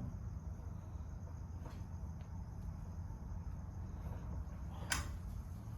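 Crickets chirring steadily over a low background hum, with one sharp click about five seconds in.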